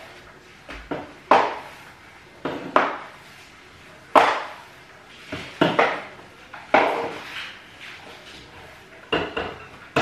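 Mop worked across a hard floor in quick strokes: about eight sharp scrapes and knocks at uneven intervals.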